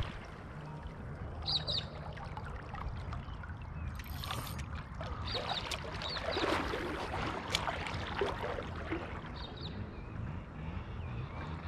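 River water sloshing and trickling close by. About four seconds in there is a brief whirr as a baitcasting reel pays out line on a cast, and a few short bird chirps are heard.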